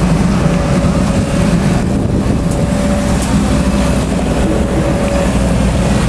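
XCMG XE210i hydraulic excavator's diesel engine running steadily as the machine works, a deep continuous rumble with a faint steady whine over it.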